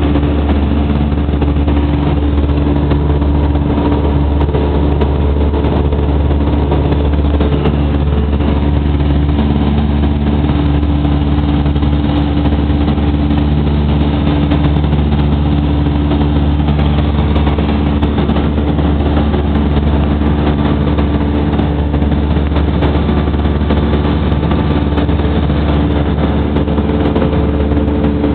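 Aircraft engine droning steadily, heard from inside the cabin during the climb after takeoff.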